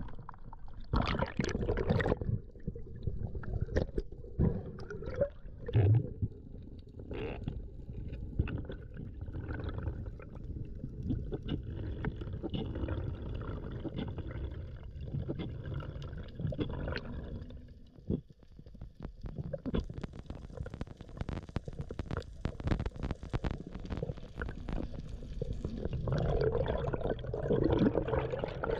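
Muffled underwater sound of water moving and gurgling around a submerged action camera during a spearfishing dive: a steady low rumble with scattered clicks and knocks, and a brief hissing stretch past the middle.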